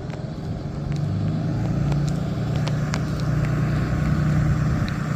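Steady low hum of a car running, with a few faint scattered ticks over it.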